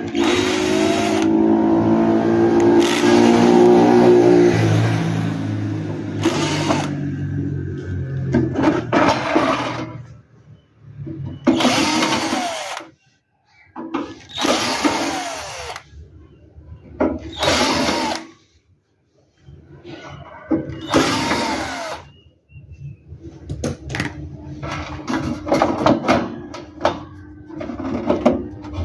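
Cordless drill-driver backing screws out of a metal amplifier cover: one long run with its pitch sinking, then several short bursts that speed up and slow down as the trigger is pressed and released. Clicks and knocks of the screws and the case being handled near the end.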